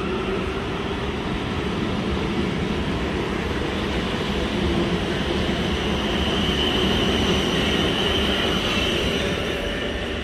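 A South Western Railway electric multiple-unit train running past a station platform, its wheels rumbling steadily on the rails, with a faint high whine in the second half. The sound cuts off suddenly at the end.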